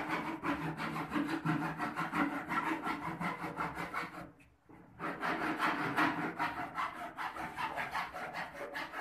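Hand saw cutting through a large grey pipe with quick, even back-and-forth strokes. The strokes pause briefly just after four seconds in, then resume.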